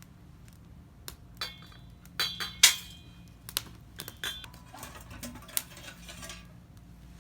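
Metal cookware and utensils being handled: a string of sharp clinks with a short metallic ring, the loudest about two and a half seconds in, followed by softer clatter and rustling.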